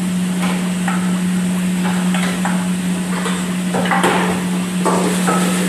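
Metal ladle and steel bowl clanking against a wok, a string of sharp clinks and knocks with the loudest about four seconds in, over a steady low hum.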